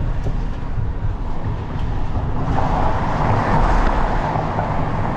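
A car driving: steady low road and engine rumble with a hiss of wind, the noise growing louder about two and a half seconds in.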